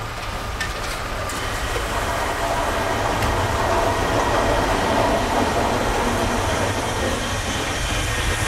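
Tram passing on the street, its wheels running on the rails, growing louder to a peak about five seconds in and then easing off.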